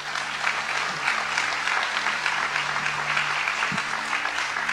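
Congregation applauding steadily, with a soft held musical chord underneath.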